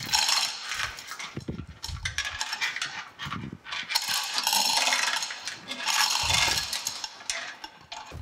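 Hand-operated chain hoist on a gantry crane being worked to lower a heavy cast-iron forge: the hand chain rattles through the hoist in uneven spurts, loudest from about halfway through, and tapers off near the end.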